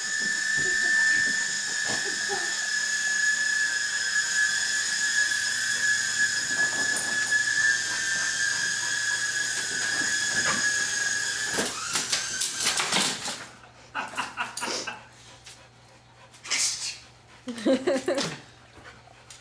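Small electric motor and rotors of a toy remote-control helicopter running with a steady high whine, which cuts off about twelve seconds in. A quick clatter of clicks and knocks follows.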